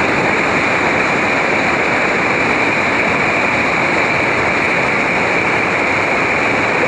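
Whitewater river rapid rushing: a steady, loud wash of churning water.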